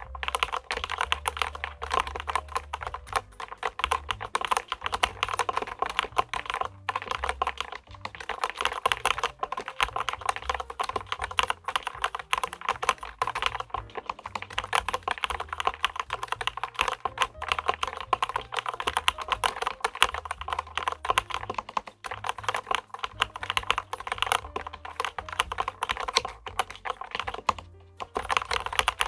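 Typing on a LEOPOLD FC660MBT compact mechanical keyboard: fast, continuous keystroke clicks and clacks, with a few brief pauses.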